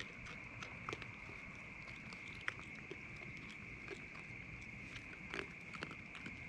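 Raccoons foraging and eating: irregular small clicks and crunches, a few each second, over a steady high-pitched drone of night insects.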